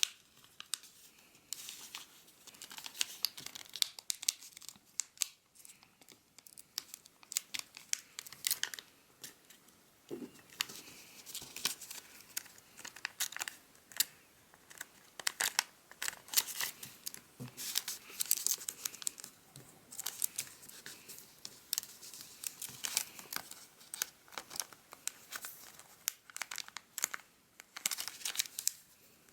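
A square sheet of origami paper being opened out, squash-folded and creased by hand: quiet rustling and crinkling of paper with frequent, irregular sharp crackles.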